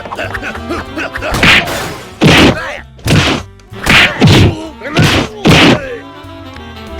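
Cartoon fight sound effects: a rapid run of about seven heavy punch-and-whack hits over background music.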